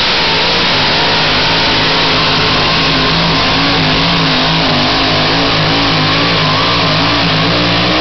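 Pulling pickup truck's engine running hard at full throttle as it drags a weighted sled down the track, its pitch wavering up and down.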